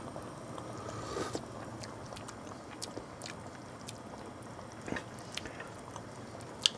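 Quiet mouth sounds of a person tasting stew from a spoon: soft lip smacks and small clicks, spread out over a few seconds.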